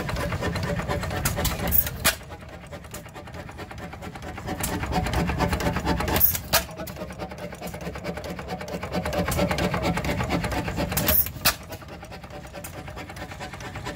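Woodpecker hopper-cooled stationary gas engine running hit-and-miss: spells of firing about two seconds long, each ending in a couple of sharp snaps, alternating with quieter coasting.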